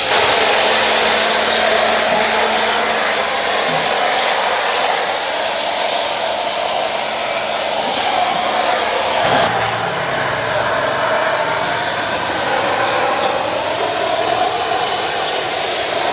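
Pressure washer spraying water onto a truck: a loud, steady hiss that wavers slowly in tone as the jet moves over the surface.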